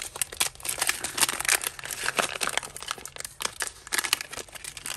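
Plastic bag crinkling and rustling in quick, irregular crackles as hands rummage through loose costume jewellery.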